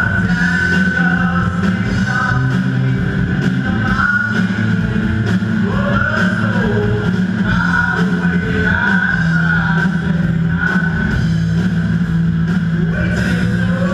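A rock band playing loudly live: electric guitars, bass and drum kit, with a melody sliding up and down in pitch over a steady bass.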